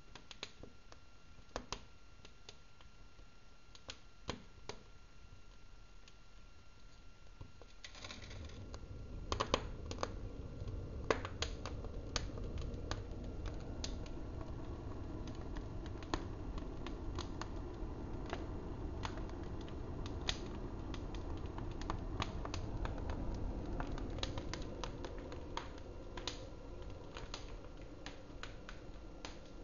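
Wood fire crackling, with irregular sharp pops and snaps. About eight seconds in, a steady low rush of flame joins the crackle.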